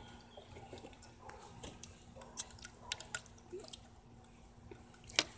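Faint scattered clicks and ticks from a small handheld lighter being struck and handled to light a tortilla chip, with one sharper click near the end.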